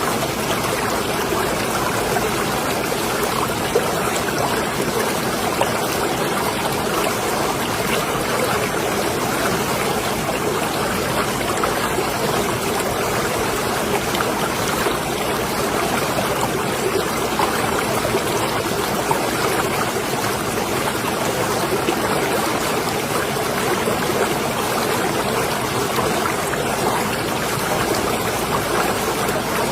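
Marina water lapping and trickling in a steady, even wash, with small splashes scattered through it.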